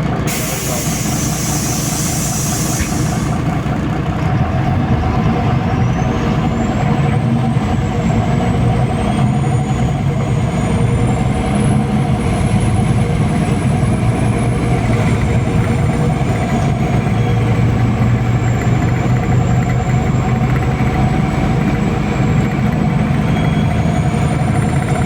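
MAZ-203.169 city bus heard from inside the cabin: a burst of compressed-air hiss over the first three seconds, then the bus's engine running steadily as it drives, with a thin high whine that rises about five seconds in and then wavers up and down.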